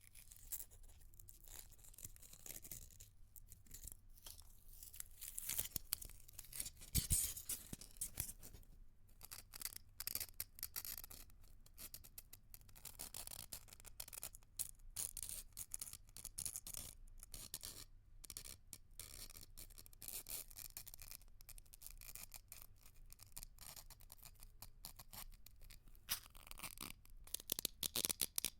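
Ice cracking and being crushed: a dense, irregular run of crunches and crackles. There are louder bursts about a quarter of the way in and again near the end.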